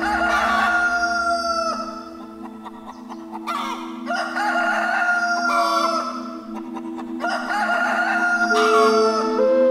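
Rooster crowing three times, each crow a long call of nearly two seconds, about three and a half seconds apart, over a steady drone of background music that adds a new note near the end.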